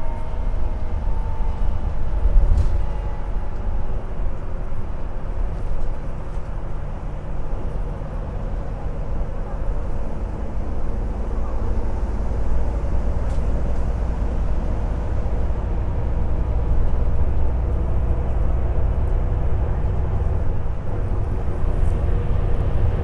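Interior of a moving bus: steady low engine and road rumble, with a faint whine above it.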